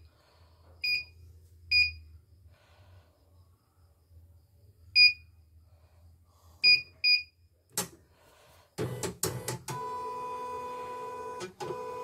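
Portable embroidery machine's control panel beeping at button presses, about six short beeps, then a few sharp clicks and knocks. From about ten seconds in the machine's motor runs with a steady hum, broken briefly near the end.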